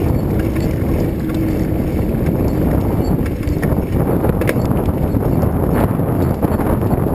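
Wind rushing over the microphone while riding a bicycle, a loud steady rumble, with a few faint clicks and rattles from the bike.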